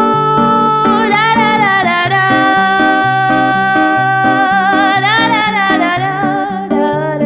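Music: plucked acoustic guitar with a long, wavering held melody line over it, without words.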